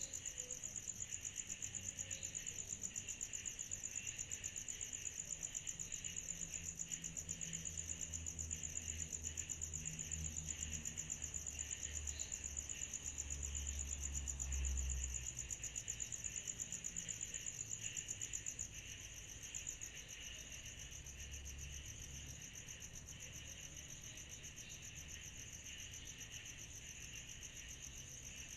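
Night insect chorus: a steady high-pitched trill with a rapid pulse, over a second, lower buzzing band. A faint low rumble comes and goes in the middle, and the chorus gets slightly quieter about two-thirds of the way through.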